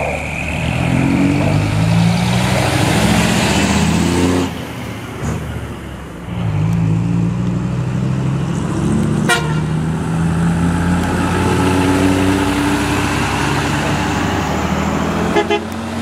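Large diesel truck engines pulling away and passing close, revs climbing in steps with gear changes and a short lull about four and a half seconds in. There is a brief sharp click about nine seconds in.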